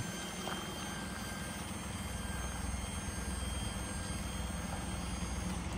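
Daihatsu Hijet mini truck's 660cc three-cylinder engine idling with a steady low rumble.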